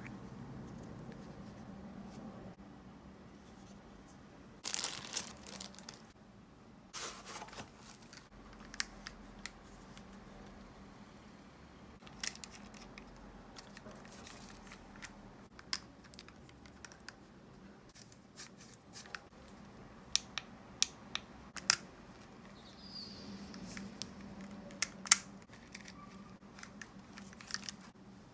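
Handling noise from unboxing a Feiyu Vlog Pocket gimbal and its mini tripod: two short rustles, then scattered sharp clicks and taps of the plastic parts being handled and set down.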